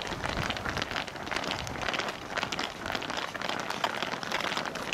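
Footsteps of a football team walking together on pavement in cleats: a dense, irregular patter of many overlapping clicks.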